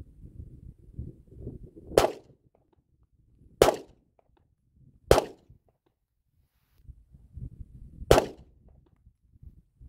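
Four single shots from a Smith & Wesson CSX 9mm compact pistol: three about a second and a half apart, then a pause of about three seconds before the fourth.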